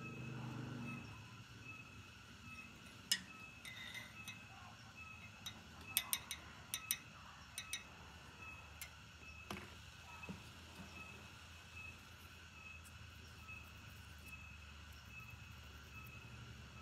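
Scattered light metallic clicks and clinks as steel rod and rebar are handled at the vise: one about three seconds in, a quick cluster from about six to eight seconds in, and one more near the tenth second. A faint steady hum lies under them.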